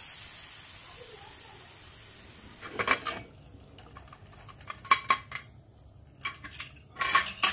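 The last steam hissing out of a Hawkins Contura pressure cooker's vent as a spoon holds up the whistle weight, fading away over about two and a half seconds. Then the lid clanks and scrapes against the pot in several sharp metal clinks as it is unlocked and lifted off.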